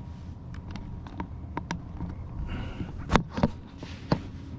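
Handling noises in a kayak while a caught bass is held: a string of light clicks, then three sharper knocks, two a little after three seconds in and one about four seconds in, over a steady low rumble.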